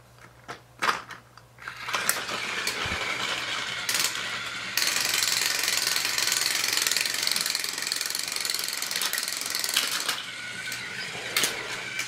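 Battery-operated toy train engine running along plastic track: a steady geared motor whirr after a few clicks as the engine is handled. It grows louder through the middle stretch as the train climbs the slope, then eases.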